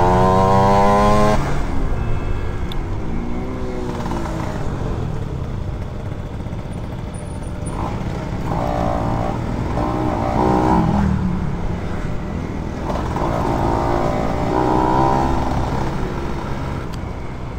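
Motorcycle engine heard from the rider's seat, revving up and easing off in traffic. Its pitch climbs in the first second and then rises and falls several more times.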